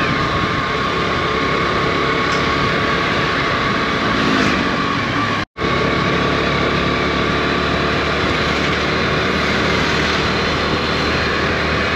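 A small 110cc single-cylinder motorcycle engine running steadily while riding, with wind and road noise. The sound cuts out for an instant about halfway through.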